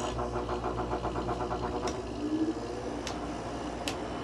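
Haier 5,200 BTU window air conditioner switching on: the fan and compressor start abruptly and settle into a steady hum. For about the first two seconds there is a fast, even rattle, with a few sharp clicks later. The owner puts the unit's odd fan noise down to the fan motor or fan blade.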